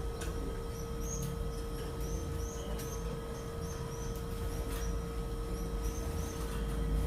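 Lancashire canary giving a string of short, high chirps, each rising and falling, about two a second, over a steady low hum.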